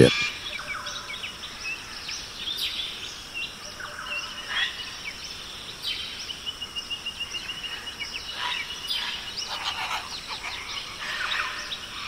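Tropical forest ambience: scattered bird calls and chirps over a steady high hiss. About halfway in, a fast run of evenly repeated high notes lasts a few seconds.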